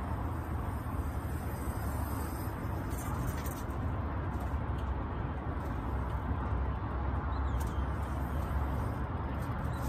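Wind buffeting the microphone: a steady low noise that rises and falls slightly in strength.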